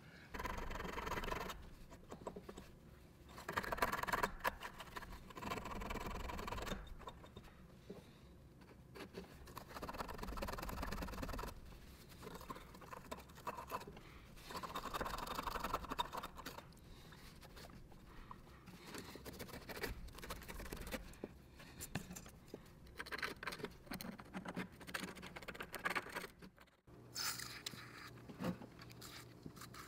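Repeated bursts of scraping and rubbing, each lasting one to two seconds, with quieter scratching between them.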